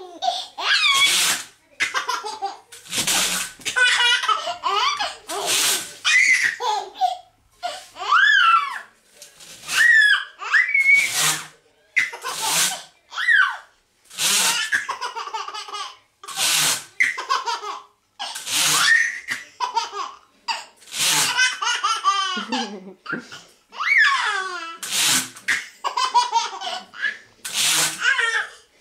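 A baby laughing heartily in bursts, answering short rattling swishes of window blinds that come about every two seconds.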